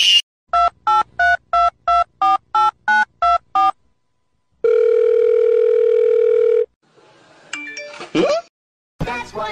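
Telephone keypad tones: ten quick beeps, about three a second and each a different pitch, as a number is dialed, then a steady ringing tone for about two seconds. A short rising sound follows near the end.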